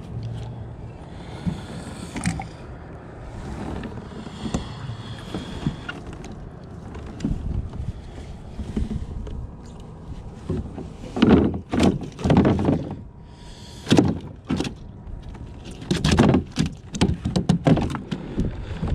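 Knocks, thumps and rustling as a flounder is handled in a landing net on a kayak, loudest in the second half.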